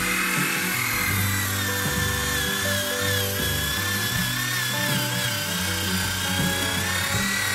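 Electric random orbital sander running continuously while stripping old paint and rust from a steel deck: a steady whine that wavers a little in pitch. Background music with a changing bass line plays over it.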